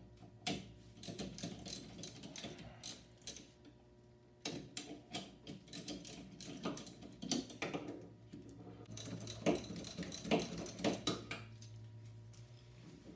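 Small hand ratchet clicking in quick irregular runs as the 14 mm bolts holding a rear wheel hub are backed out, with a brief pause about four seconds in.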